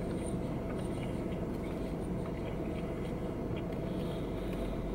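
Steady low hum of a running car heard inside the cabin, with a few faint small clicks from chewing and handling a sandwich in its paper wrapper.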